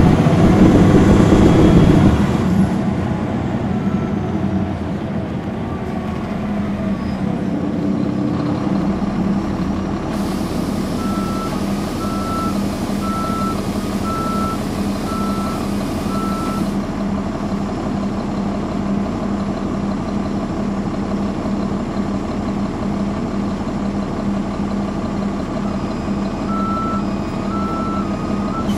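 Caterpillar C13 diesel engine of a NABI transit bus running steadily, loudest in the first two seconds. In the middle, an electronic beep repeats a little faster than once a second for about five seconds over a high air hiss, and a few more beeps come near the end.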